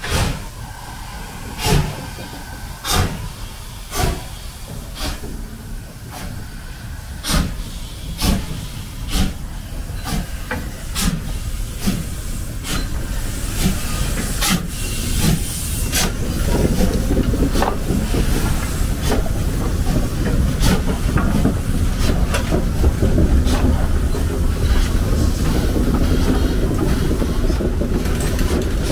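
Class 52 steam locomotive pulling away from a stand on a slight upgrade: sharp exhaust chuffs, about one a second at first and quickening, over hissing steam. From about halfway, the louder rumble of the engine and tender rolling close past.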